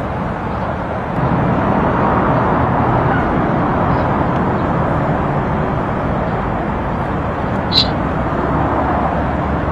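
Steady outdoor street ambience with traffic noise, with a short high-pitched chirp about eight seconds in.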